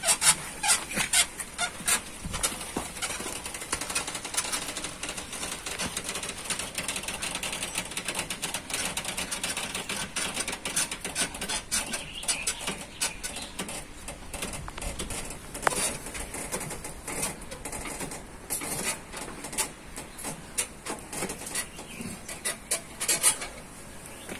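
Multi-stage scissor jack cranked by hand through an extension bar with a universal joint, its drive screw and levers clicking and squeaking in a rapid, irregular stream as it lifts the weight of a vehicle.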